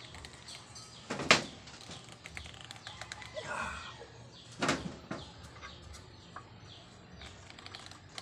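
Hands handling plastic water-filter housings: a sharp knock about a second in and another about halfway through, with softer clicks and rubbing between them.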